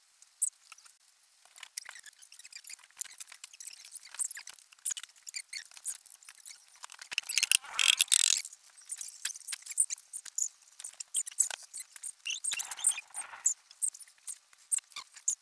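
Piston being fitted into a diesel engine block: light metallic clicks and squeaks from the piston ring compressor and piston, with a quick run of sharp taps from a rubber mallet about halfway through as the piston is driven into its bore.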